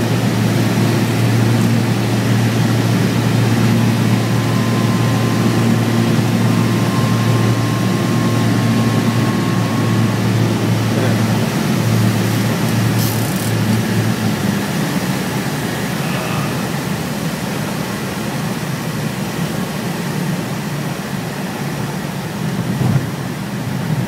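Cessna's piston engine and propeller droning as heard inside the cabin, a steady low hum that wavers and drops noticeably quieter about halfway through. A short sharp click sounds just after the change.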